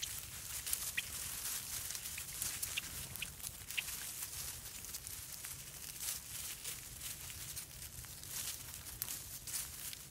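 Small birds pecking seed in a stone dish feeder: a busy, irregular patter of light clicks and taps, with a few short high chip calls in the first few seconds, over a low steady rumble.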